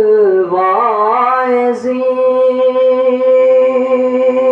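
A male voice holding one long sung note of a devotional Salaat-o-Salaam recitation, with a wavering ornamental turn about a second in before it settles and is held steady.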